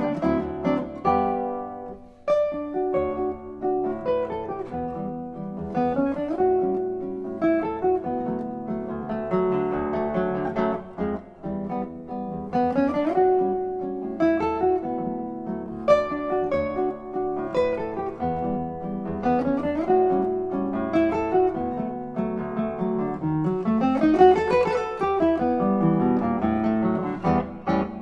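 Solo classical guitar playing a Brazilian choro: a fingerpicked melody over a moving bass line, with several quick rising runs.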